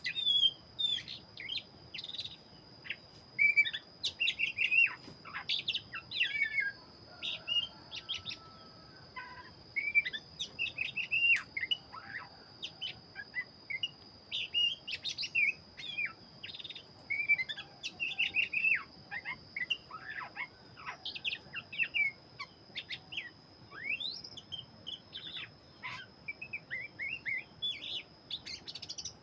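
Oriental magpie-robin of the black-bellied form (kacer dada hitam) in full song: a fast, varied run of whistled notes and sliding chirps in short phrases, with a steady thin high whine underneath.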